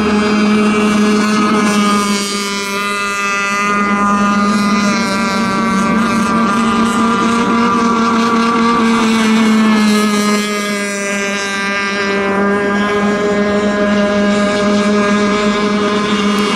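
Radio-controlled racing boats running flat out, a steady high-revving buzz. The pitch edges up a little and then drops slightly about ten seconds in.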